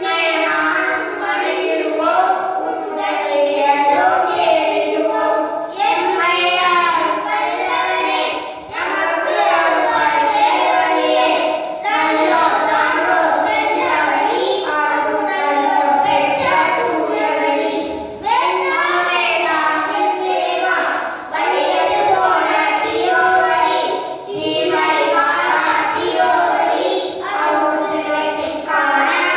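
Young boys singing a song together into a microphone, in phrases broken by short breaths.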